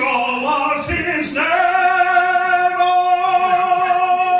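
A man singing a cappella in a mock-operatic style: a short phrase sliding between notes, then one long held note from about a second and a half in.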